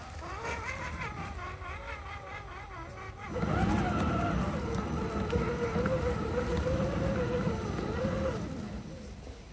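Electric motor and gearbox of a scale RC crawler truck whining as it crawls over mud and stones, the pitch wavering up and down with the throttle. It gets louder about three seconds in.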